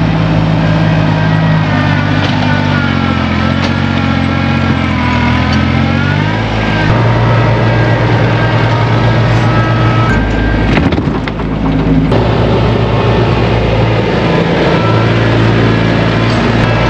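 Tractor engine running steadily, its pitch wavering and shifting for a few seconds, then changing abruptly about ten seconds in before settling back to a steady note.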